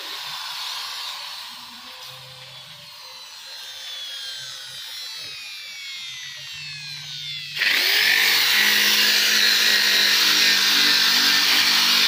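Handheld electric drill fitted with a sanding disc, switched on about seven and a half seconds in and running loudly and steadily as it sands wood. Before that, a fainter whine slowly falls in pitch.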